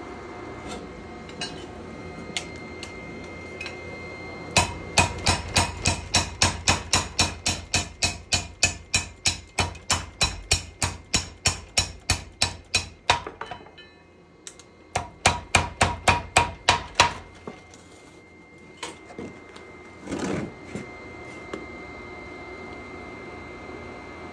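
Hammer forging a knife blank: a fast, even run of blows on the steel, about five a second and slowly getting softer, lasting some eight seconds. After a short pause comes a second run of about two seconds, with a few single knocks before and after.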